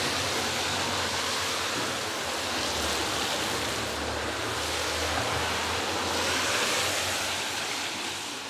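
A steady, even rushing noise, much like wind or surf, holding level and easing slightly near the end.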